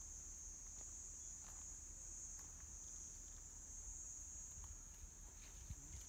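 Faint, steady high-pitched shrilling of insects, with a low rumble underneath.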